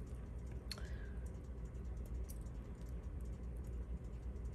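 Faint, scattered small clicks and scrapes of a fingernail picking old glue out of a metal jewelry setting, with one sharper click under a second in, over a low steady hum.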